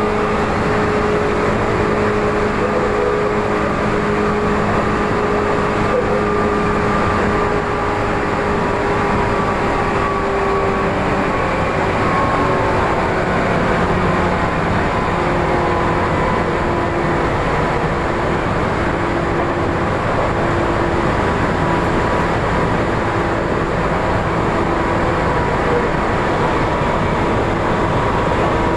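Tokyu 8500 series electric train running at speed, heard from inside the car: a loud, steady rumble of wheels on rail under several steady whining tones from the traction motors and gears. The lowest whine drops out about a quarter of the way in.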